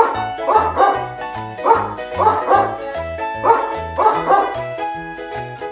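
A dog barking repeatedly, about a dozen short barks mostly in quick pairs, over background music with a steady bass beat.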